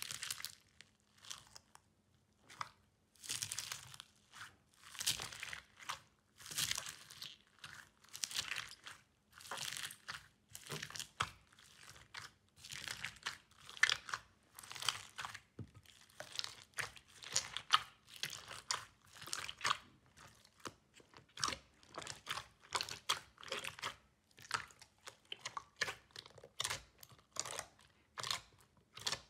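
Green slime mixed with foam beads being pressed and kneaded by hand, crunching and squishing in a steady run of short crackly bursts, about one or two a second.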